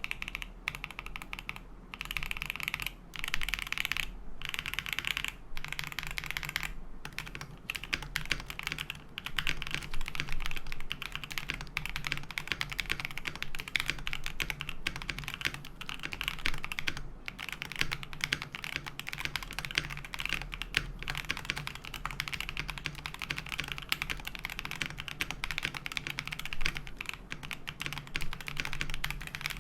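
Continuous fast typing on a KBD67 Lite mechanical keyboard fitted with KTT Hyacinth linear switches, giving dense rapid keystroke clacks with short pauses in the first few seconds.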